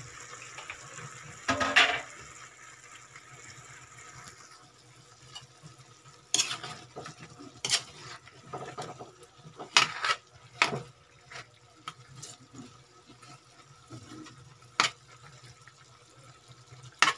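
Chicken adobo simmering in a metal wok, with a metal spoon scraping and clinking against the pan several times as it is stirred.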